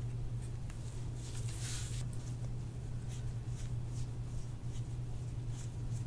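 Faint, irregular rubbing and brushing of massage work on a patient's back, over a steady low hum.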